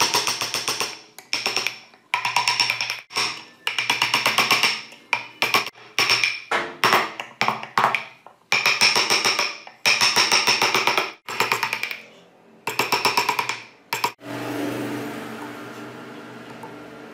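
Hand chisel shaving hardwood in a run of short rasping strokes, each under a second, with brief pauses between them. The strokes stop a few seconds before the end, leaving a fading ring.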